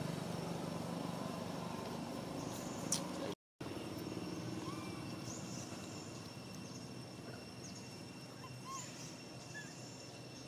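Outdoor background with a steady low rumble. Sound drops out briefly about a third of the way in. Afterwards the rumble is quieter, with a few faint short chirps and a thin steady high tone.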